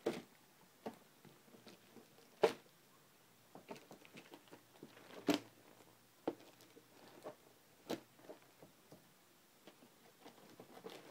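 Hands handling an RC truck and its parts: scattered light clicks and knocks, the loudest about two and a half seconds in and another just past five seconds.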